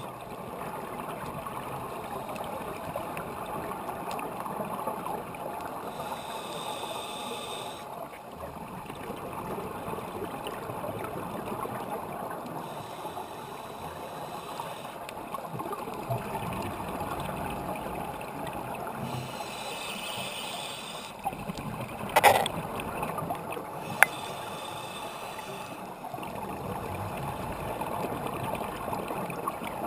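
Scuba regulator breathing and exhaled bubbles heard through a GoPro's underwater housing: a muffled steady rushing with a brighter hiss of bubbles every six seconds or so. Two sharp clicks come a couple of seconds apart about two-thirds of the way through.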